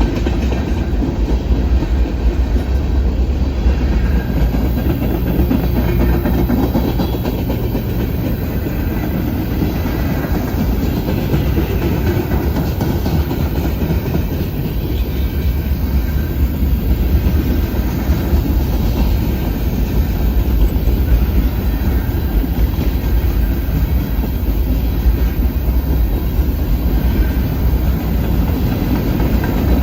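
Freight cars of a Norfolk Southern manifest train rolling past: a steady, loud rumble of steel wheels on the rails.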